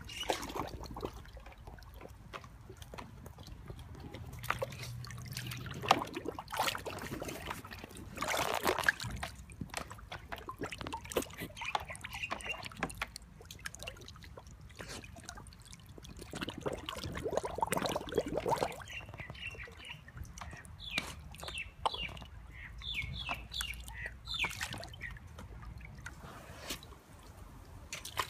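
Water sloshing and splashing in a plastic tub as an Alaskan malamute pushes its head under for a ball, over a steady trickle of a hose running into the tub. The biggest splashes come about eight and about eighteen seconds in, and a few short high chirps sound about twenty seconds in.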